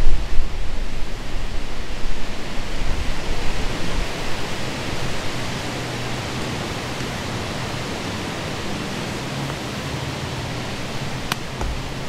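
Strong wind rushing through the woods, buffeting the microphone with a gusty low rumble for the first few seconds, then settling into a steady hiss. A single sharp tick near the end.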